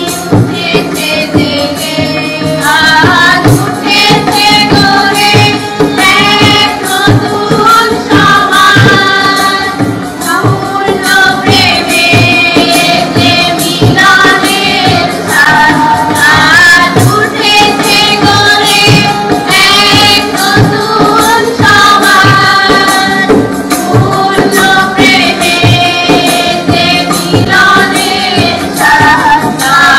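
Bengali Christian devotional song: a voice singing a melody over a steady percussion beat.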